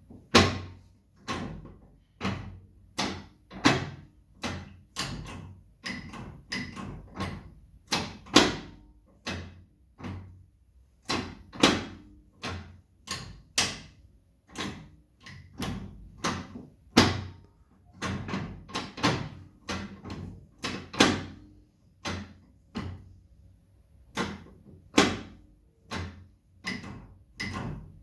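Custom Honda Shadow motorcycle's gearbox clunking as the gears are shifted again and again: a sharp click-clunk a little more than once a second, some much louder than others.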